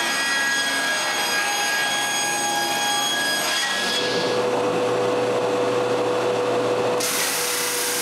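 Table saw running as a wide mahogany board is pushed through on its sliding table. About four seconds in this gives way to a benchtop drum sander running with a steady hum, turning hissier about a second before the end.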